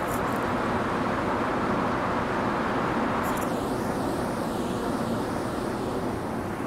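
Steady mechanical running noise from an Amtrak Capitol Corridor passenger train at the platform, its SC44 Charger diesel locomotive and bi-level cars running as it readies to depart.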